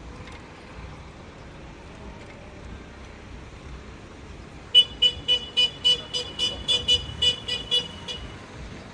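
A rapid run of about fourteen short, sharp warning signals, roughly four a second for about three and a half seconds, starting about halfway through over steady street traffic.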